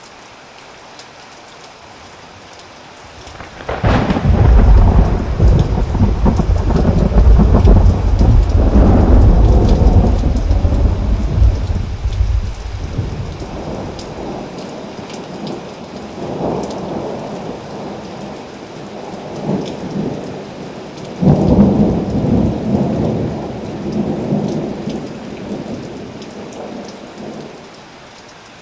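Steady tropical rain falling, broken about four seconds in by a loud thunderclap that rumbles heavily for some ten seconds. Softer rolls of thunder follow, then a second clap about three-quarters of the way through that rumbles and dies away.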